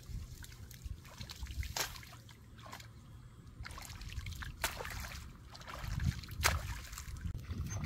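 Hands scooping mud and water in a shallow flooded rice paddy: sloshing and dripping, with a few sharp splashes, the clearest about two, four and a half and six and a half seconds in.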